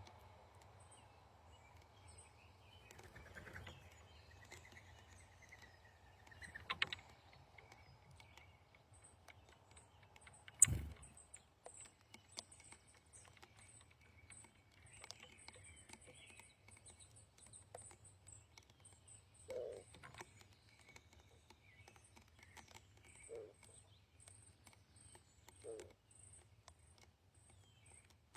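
Wild birds calling: a long run of short, thin, high chirps, with several short low call notes in the second half. A sharp knock sounds about eleven seconds in, and a smaller one a few seconds before it.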